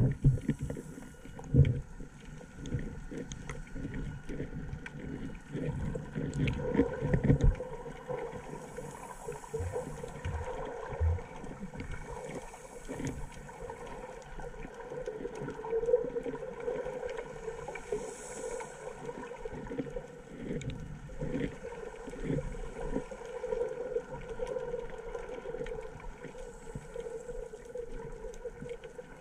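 Muffled underwater water noise picked up by a snorkeller's submerged camera, with a run of low knocks and thumps over the first seven or so seconds, then a steadier wash of water sound with slow swells.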